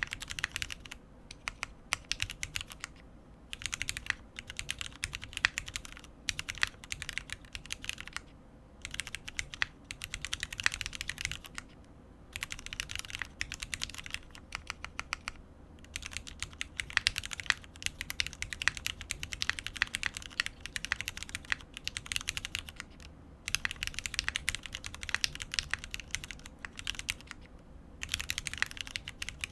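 Typing on a custom tenkeyless mechanical keyboard with lubed linear Cherry MX Black switches on an aluminium plate: runs of quick keystrokes lasting a second or three, with short pauses between them.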